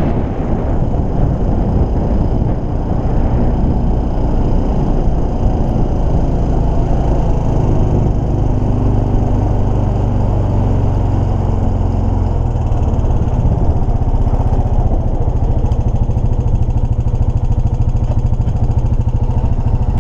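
ATV engine running steadily as the four-wheeler drives across the ice, its low engine note shifting partway through.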